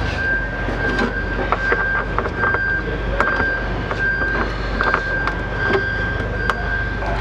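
Steady low machine hum with a constant high-pitched whine behind it, and a scattering of small clicks and taps as hands work a side marker light into the body panel.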